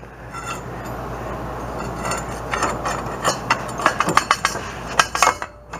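Irregular metallic clinks and clanks of steel tools being handled: a pipe and yoke wrench tool being fitted onto a differential's pinion yoke. The knocks come in a cluster from about two seconds in until near the end, over a steady low hum.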